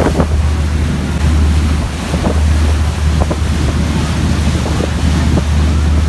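Moving passenger ferry: a steady low rumble with water rushing past the hull, heavily buffeted by wind on the microphone.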